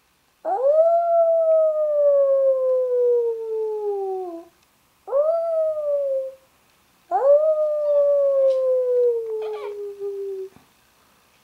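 Labrador puppy howling three times: each howl jumps up sharply and then slides slowly down in pitch, the first and last lasting several seconds and the middle one short.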